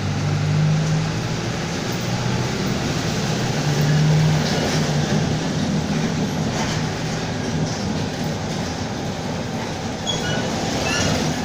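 Mercedes-Benz OF-1722M city bus on the move, heard from on board: a continuous rumble with a steady low drone. The recordist puts the drone down to the driveshaft growling in second gear. A few short high squeaks come near the end.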